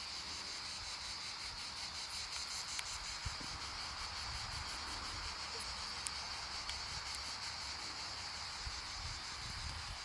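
Insects chirring in a steady high-pitched chorus, with an uneven low rumble of wind on the microphone underneath.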